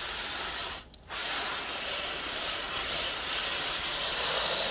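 Garden hose spraying water, rinsing loose fish scales away. The spray cuts out briefly about a second in, then runs on steadily.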